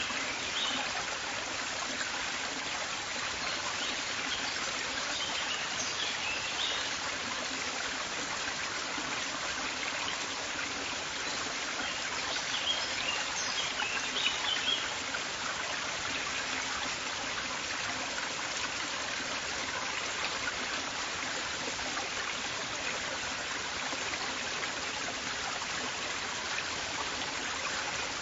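River water flowing in a steady rush and trickle, with a few brief high bird chirps, most of them near the middle.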